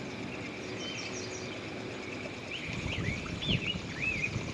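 Wild birds calling: a quick run of high chirps about a second in, then several short whistled notes in the second half, over a steady outdoor background hiss. Low rustling and knocks come in about halfway.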